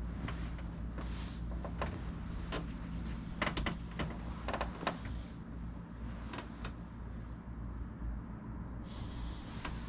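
Bedding rustling, with a few soft knocks and clicks, as a person shifts and sits up in bed, the busiest stretch about three to five seconds in, over a steady low electrical hum.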